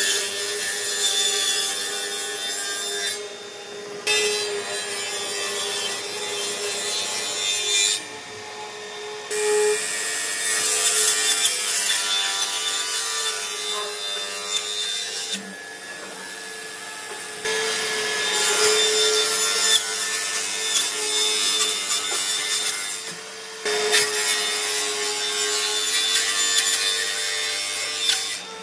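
Table saw ripping a wide hardwood board: a steady blade hum with the loud hiss of the cut over it. The cutting noise drops away briefly several times while the blade keeps running.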